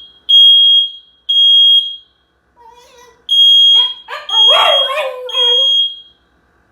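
Smoke alarm sounding in the three-beep fire-alarm pattern: a high, loud beep three times, a pause of about a second and a half, then three more. A Shiba Inu whines faintly before the second set and louder over it.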